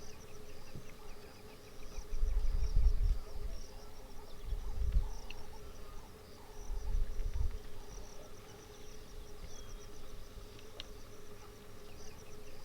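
Insects chirping in fast, repeated trills over a steady hum, with three spells of low rumbling about two, five and seven seconds in.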